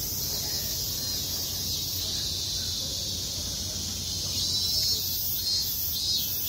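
Cicadas buzzing in chorus in the trees: a steady high-pitched buzz, with a pulsing call rising over it in the second half. A low rumble lies underneath.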